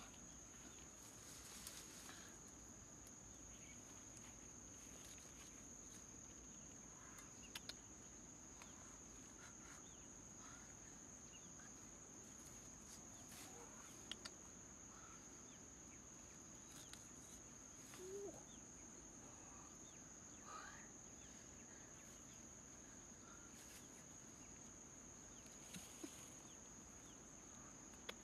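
Near silence: a steady high-pitched insect drone, with faint scattered bird calls and a few soft clicks.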